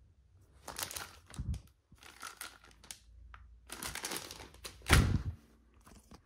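Packaging crinkling and rustling as it is handled, in several bursts, with a thud about a second and a half in and a louder one about five seconds in.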